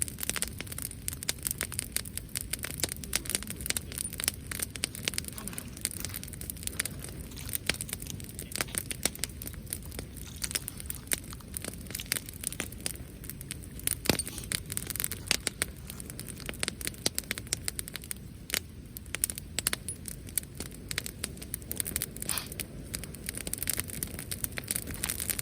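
Wood campfire crackling, with a dense run of small sharp pops and snaps over a steady hiss.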